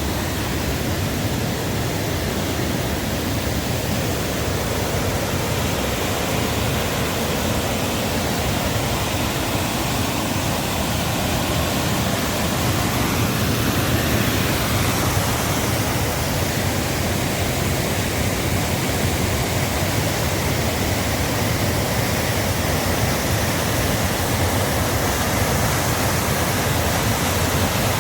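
River water and waterfalls rushing in a loud, steady, unbroken wash of noise, the river running high after heavy rain.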